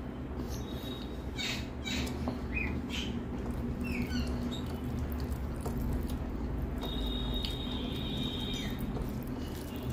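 Close-miked eating sounds: wet chewing and mouth smacks with short squeaky squelches, as cooked rice is squished and mixed by hand on a steel plate. A steady low hum runs underneath.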